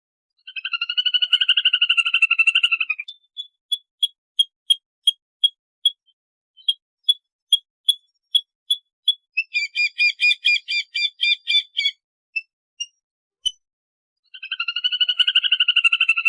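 Lesser whistling duck flock call, the kind played as a lure to call the flock in: a rapid trilled whistle lasting about two and a half seconds, then single short whistled notes two to three a second, a burst of dense chattering whistles about ten seconds in, and the trilled whistle again near the end.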